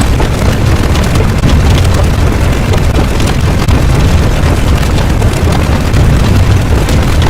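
Loud, steady low rumble with a rough hiss above it, a sustained explosion-like sound effect, unchanging throughout.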